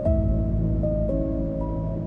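Slow medieval-style ambient music: held low chord tones under a melody whose notes change every half second or so.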